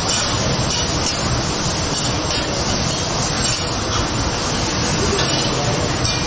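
Food sizzling on a large flat-top teppanyaki griddle as a cook stirs and scrapes it with two metal spatulas, over a steady low rumble.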